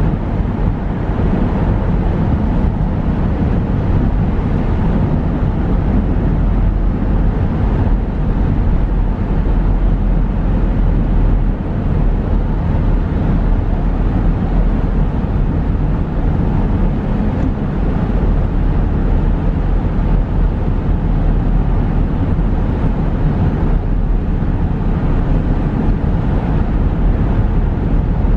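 Steady low rumble of a car's tyres and engine cruising through a road tunnel, heard from inside the cabin.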